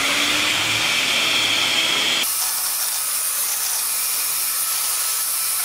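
Electric hand mixer running, its beaters whipping cream and cream cheese in a stainless steel bowl. About two seconds in, the sound changes abruptly to a thinner, higher hiss.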